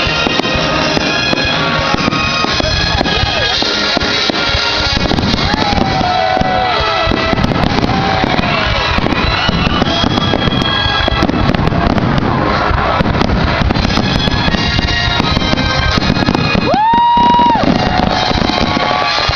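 Fireworks banging and crackling over loud music. About 17 seconds in, a sharp rising whistle levels off and holds for a second.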